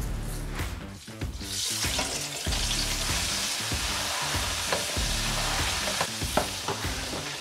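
Chicken pieces deep-frying in hot oil in an electric deep fryer, sizzling steadily. The sizzle comes up about a second and a half in.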